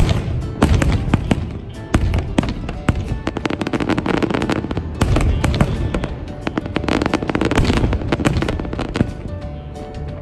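Aerial fireworks bursting: many sharp bangs and crackles in quick succession, with music playing underneath.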